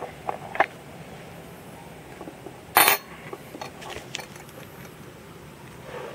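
Metal and plastic parts of a Beyblade 4D spinning top clicking and clinking as they are handled and fitted together by hand: a few light clicks near the start, one loud, sharp metallic clink a little under three seconds in, then scattered small ticks.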